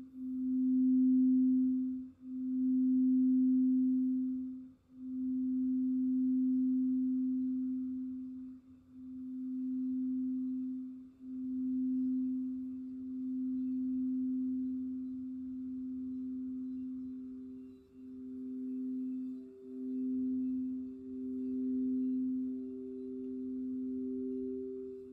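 Crystal singing bowls ringing: a steady low tone that swells and dips every two to three seconds, joined about eleven seconds in by a second, higher bowl tone that grows louder.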